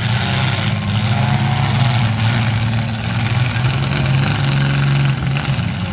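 Demolition derby cars' engines running hard under load, a loud steady low drone with a haze of noise over it.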